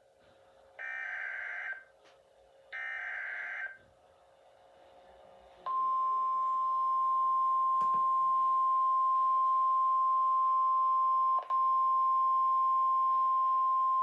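Emergency Alert System SAME data header: two harsh digital screech bursts, each about a second long. About six seconds in, a steady single-pitch warning tone starts and holds to the end, with one brief dip partway through.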